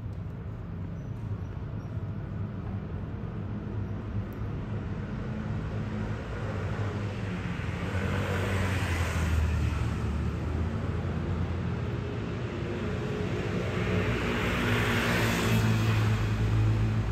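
Road traffic: a steady low engine hum with vehicles passing, swelling twice, about halfway through and again near the end.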